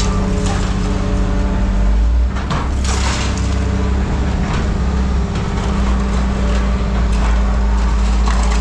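A heavy machine running with a steady low drone, while scrap metal clanks and crashes now and then, loudest about three seconds in.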